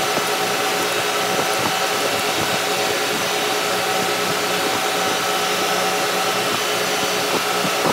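Steady, loud drone of running machinery with a constant hum. Faint clicks of hand tools on a fuel pump's shaft and housing are heard now and then.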